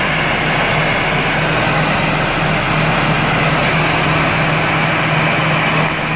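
Airbus A320's jet engines running at taxi power as the airliner rolls slowly close by: a loud, steady rushing noise with a low hum beneath it.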